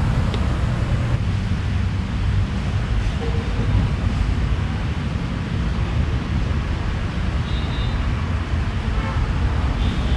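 Steady low outdoor rumble of road traffic.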